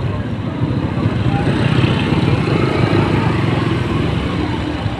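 Motorcycle engine running with road noise while riding in street traffic, a steady low rumble.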